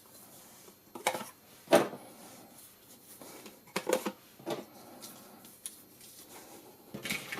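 Small plastic spring clamps being handled and clipped onto something, giving a handful of short, scattered plastic clicks and knocks.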